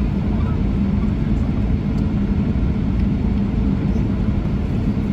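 Steady, loud rumble of a Boeing 777-300ER's GE90 engines and airframe heard inside the passenger cabin during takeoff, with a steady low hum running through it.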